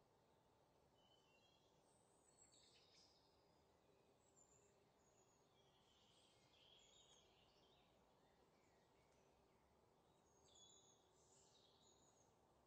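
Near silence: a faint hiss with scattered faint, short, high bird chirps.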